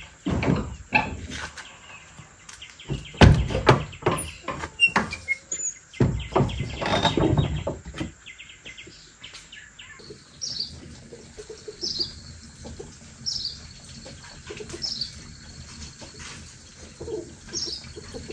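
Wooden knocks and clattering at a wooden plank door during the first eight seconds. After that, a small bird repeats a short falling chirp about every one and a half seconds.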